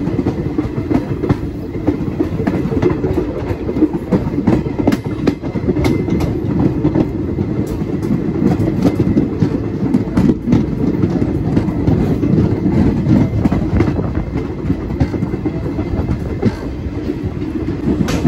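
Moving train running steadily: a continuous low rumble with the wheels clicking over rail joints.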